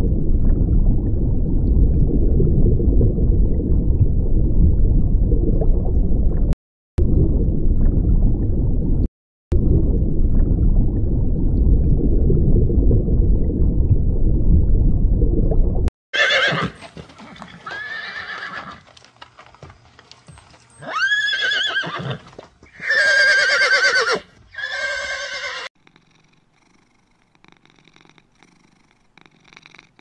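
A loud, steady low rumbling noise for about the first half, broken by two brief cuts. Then a horse whinnies about five times over some ten seconds, each call a pitched, quavering neigh.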